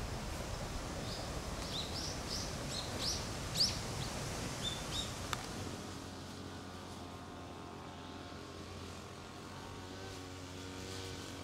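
Birds chirping in short, quick calls over a steady rushing background noise. About halfway through, a click and the noise drops, and a steady low hum with several held tones takes over.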